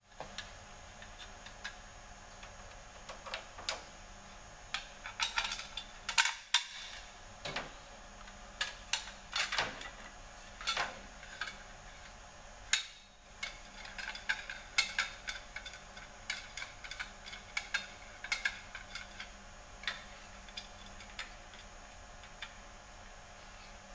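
Irregular metal clicks and clinks of hand tools and bolts as the crank trigger wheel and pulley are fastened to a big-block engine's crankshaft balancer, with short runs of rapid ticking.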